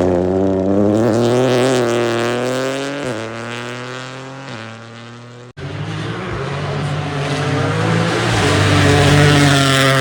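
Rally car engine at high revs moving away, its note dropping in steps as it shifts up and fades. Then, after a sudden cut, a second rally car comes in, its engine growing louder as it approaches and passes close, and starting to fade near the end.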